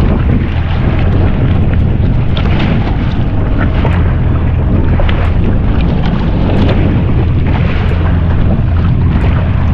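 Jet ski engine running steadily, a low even drone, under a rush of wind and water noise on the microphone with scattered crackles.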